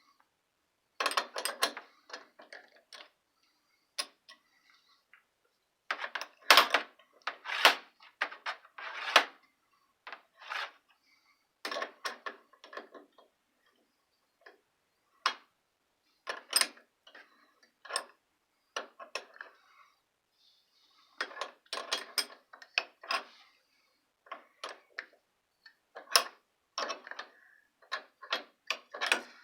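Adjustable (crescent) wrench working a metal fitting on a shower valve: irregular bursts of sharp metal clicks and clinks as the wrench is seated, turned and repositioned, with short pauses between.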